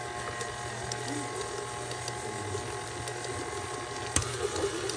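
Electric stand mixer running at a steady speed, its motor and gears whirring as the flat beater churns eggs into creamed butter-and-sugar cookie dough in a steel bowl. One sharp click about four seconds in.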